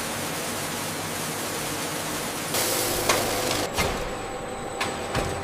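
Factory machinery noise: a steady hiss that grows louder about two and a half seconds in, with a few sharp clicks and knocks over it.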